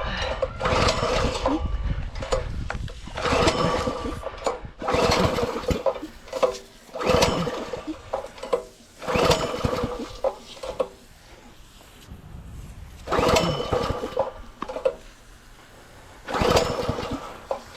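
Recoil starter on a Simpson 3100 PSI gas pressure washer pulled again and again, about a dozen pulls a second or two apart, the small engine cranking over each time without catching. It is the engine's first start after unboxing and it is slow to fire.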